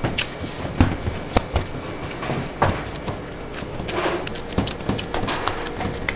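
Gloved hands pressing and patting down a large mass of croissant dough on a stainless steel table: irregular soft slaps and squishes, with a few sharper knocks.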